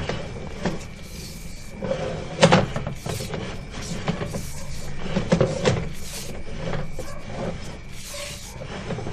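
Sewer inspection camera pushed through a pipe, knocking and scraping irregularly as it travels, with the loudest knock about two and a half seconds in. A faint steady high tone runs underneath.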